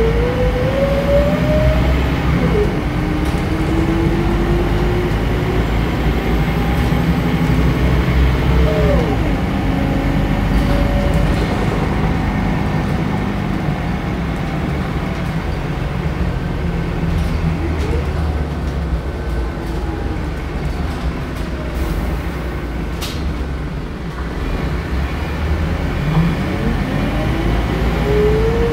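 Scania DC9 nine-litre five-cylinder diesel of a Scania K94UB bus, heard from the rear of the cabin as the bus pulls away. The engine note climbs and then drops back as the ZF five-speed automatic upshifts, about two and a half seconds in and again about nine seconds in. It goes quieter a little after halfway, then climbs steeply again near the end.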